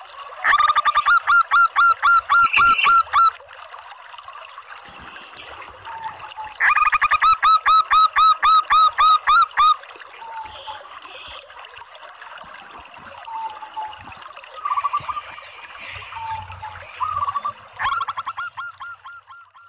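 Female zebra dove (perkutut) calling: two long runs of quick repeated short notes, about five a second, with a few quieter calls between them and a third run starting near the end.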